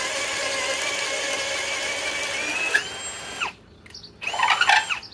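Ryobi 18V brushless hammer drill in plain drill mode on its low speed setting, boring a 1 1/4-inch spade bit through a wooden board. The motor whines steadily under load, dips a little in pitch, then rises shortly before the drill stops at about three and a half seconds. A short second run of the drill follows about a second later.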